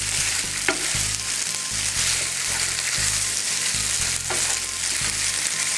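Cooked penne pasta sizzling steadily as it is re-fried in a pan over high heat, with a utensil now and then stirring and scraping through it.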